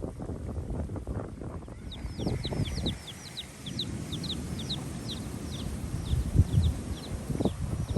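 A bird calling a rapid run of short, high, downward-sliding chirps, about three or four a second, starting about two seconds in and going on to the end, over low rumbling noise on the microphone.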